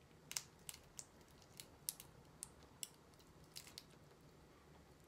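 Raw live shrimp being peeled by hand: faint, sharp crackles and clicks of the shell, about ten of them at irregular intervals.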